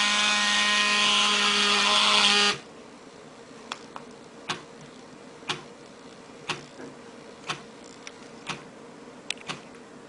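LED pocket watch alarm going off: its vibration motor buzzing very loudly together with the buzzer, which cuts off suddenly about two and a half seconds in. After that, short faint clicks about once a second.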